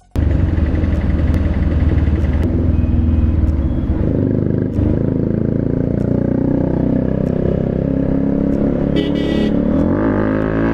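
Single-cylinder Bajaj Pulsar 125 motorcycle with a loud exhaust running while riding in traffic, its engine speed rising and falling. A short horn beep sounds about nine seconds in.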